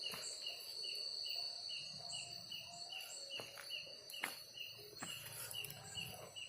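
Night insect chorus of crickets: a steady high-pitched drone with another insect's chirp repeating about twice a second. A few faint clicks are heard over it.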